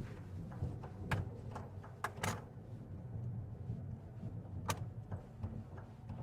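Steady low engine and road rumble inside a car's cabin as it moves slowly, with a few sharp clicks and knocks: one at about a second in, two around two seconds, and one near five seconds.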